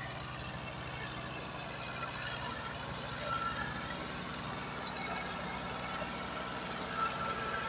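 New Holland tractor's diesel engine running steadily close by, a continuous fast, even beat as the tractor moves across the field.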